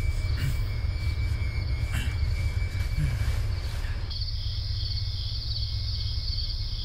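Crickets chirping in a steady, evenly pulsing trill, much louder from about four seconds in, over a low steady hum.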